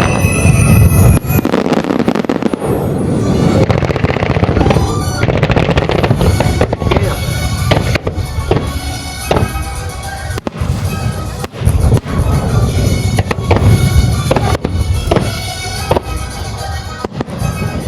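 Fireworks bursting in quick succession, bang after bang, over loud music playing along with the show: a music starmine.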